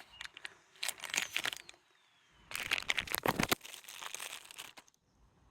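Plastic bag crinkling as it is handled and opened, in two bouts of crackle with a few clicks in between.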